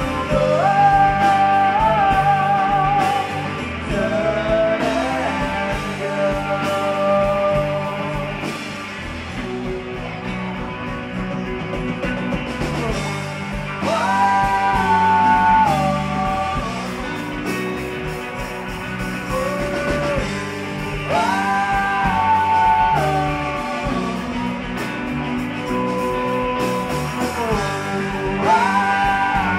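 Live rock band: a woman sings long held phrases with vibrato over electric guitar, bass guitar and drums.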